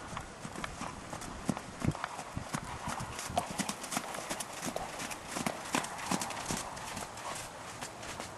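Hoofbeats of a horse trotting on wet, muddy arena footing: a steady run of sharp clip-clops.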